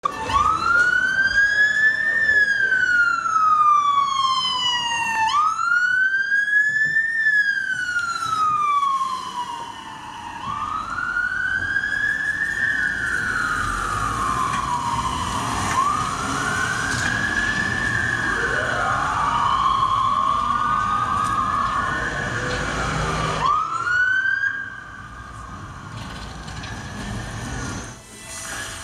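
Emergency-vehicle siren wailing, rising and falling about every five seconds; about halfway through a second siren overlaps it. Near the end the siren breaks off and the sound drops away.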